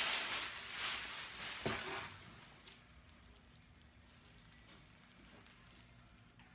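Packaging rustling and crinkling for about two seconds as it is handled and pulled open, with a sharp knock near the end of it, then only faint small clicks of handling.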